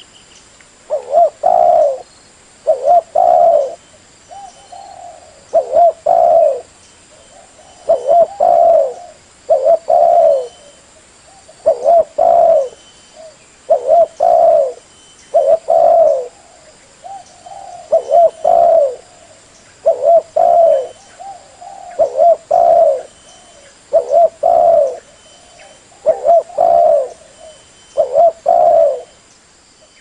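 Spotted dove (tekukur) cooing over and over, each phrase a short coo followed by a longer rolling one, about every two seconds, with softer coos in between. It is a lure call of the kind played to draw in wild spotted doves.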